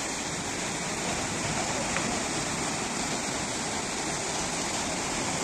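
Sea waves breaking on the shore, a steady rush of surf.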